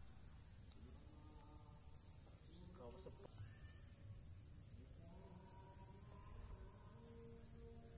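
Faint, steady high-pitched drone of insects chirring, with a few short high chirps around the middle.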